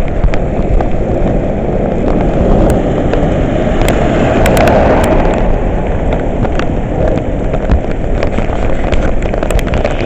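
Heavy rain pouring, loud, with wind rumbling on the microphone and scattered sharp clicks of drops striking close by.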